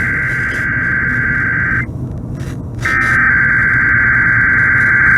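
Emergency Alert System SAME header data bursts off a radio broadcast: a harsh, buzzy digital warble that opens a Required Monthly Test. One burst cuts off about two seconds in, and after a gap of about a second the next long burst begins.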